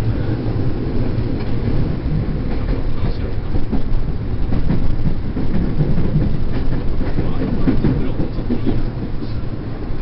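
Electric commuter train running between stations, heard from inside the carriage: a steady low rumble of wheels and running gear, with faint rail clicks over it.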